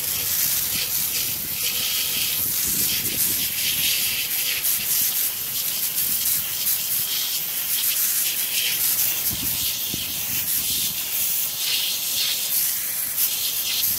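High-pressure garden hose spray nozzle making a steady hiss as its jet blasts soil and cores off the steel tines of a core aerator onto concrete.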